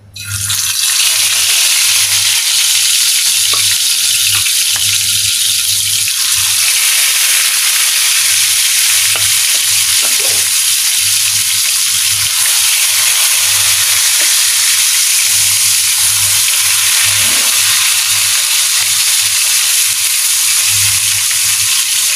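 Pieces of spice-rubbed fish frying in hot oil in a glass skillet: a loud, steady sizzle that starts suddenly as the first piece goes into the oil. A wooden spatula knocks lightly against the pan a few times.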